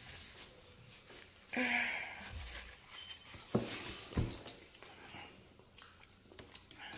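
A person with a cold sniffling through a blocked nose, with a short sniff about one and a half seconds in and two sharp clicks a little later.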